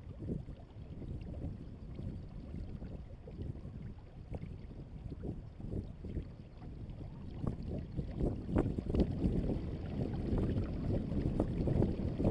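Wind buffeting the microphone and water rushing along the hull of a Hobie Adventure Island sail kayak under sail. It is a gusty, low rumbling noise that grows louder about eight seconds in.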